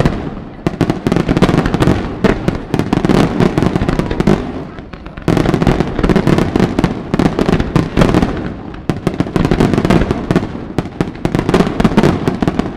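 Fireworks display: a rapid, dense salvo of exploding shells, many sharp bangs and crackles each second. There is a short lull about four and a half seconds in, a sudden loud restart just after five seconds, and a further dip and build-up near the end.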